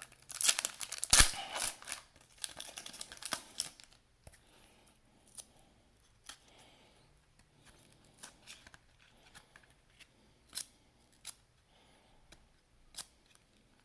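Trading-card pack wrapper being torn open and crinkled for about four seconds, then the cards handled with a series of scattered soft clicks and flicks.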